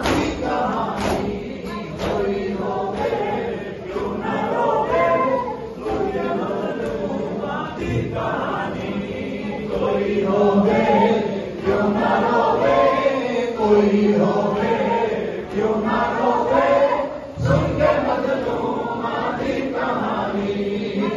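A group of men chanting a noha, a Shia lament for Muharram, together in chorus, with a few chest-beating (matam) thumps at the very start.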